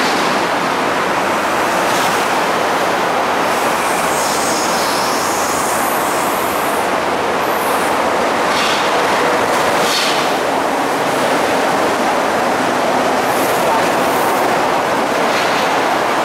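An MTR electric train running past on a viaduct: a steady rolling rumble and rush of wheels on rail, with several brief high-pitched wheel squeals.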